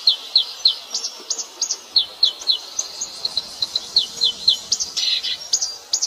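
Small songbirds chirping in quick runs of short, down-slurred notes, over a steady high insect hum.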